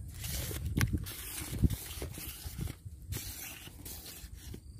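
Close rustling and handling noise with scattered knocks, one sharp knock about one and a half seconds in, as a fishing rod is handled with clothing brushing close to the microphone.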